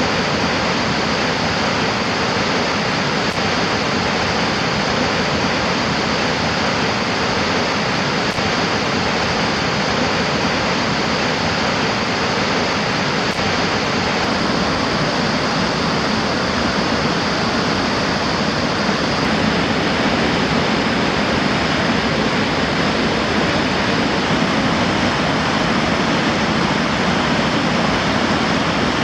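Floodwater rushing through rapids: a loud, steady rush of churning whitewater from a river in flood.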